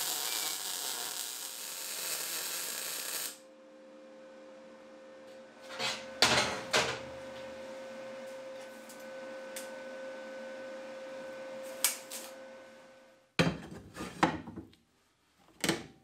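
MIG welder arc crackling steadily for about three seconds as it tack-welds a 25 mm steel square-tubing frame. After that come scattered clanks and knocks of the metal frame being handled, the loudest a cluster about two-thirds of the way in, over a faint steady hum that stops shortly before the end.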